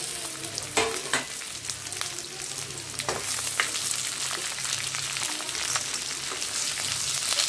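Ivy gourd sizzling steadily as it fries in hot oil in a metal kadai, stirred with a spatula that clacks against the pan a few times.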